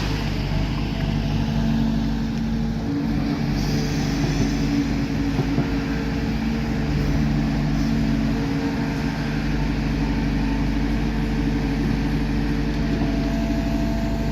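Heavy diesel machinery engine running steadily, a low rumble with several held engine tones.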